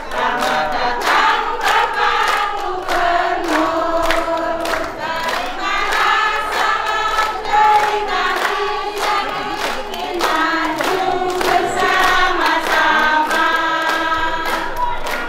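A crowd of women singing a song together, with hands clapping along in a steady beat.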